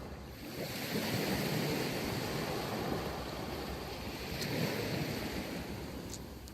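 Sea waves breaking and washing up a sandy beach, a steady rush of surf that swells about half a second in and eases off near the end. There is some wind noise on the microphone.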